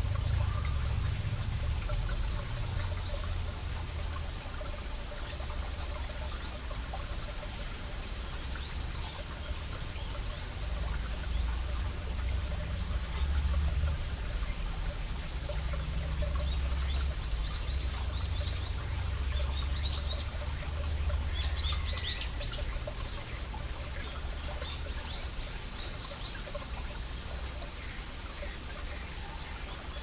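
Small mountain stream trickling over rocks, under a steady low rumble. Birds chirp throughout, with a quick flurry of chirps about two-thirds of the way through.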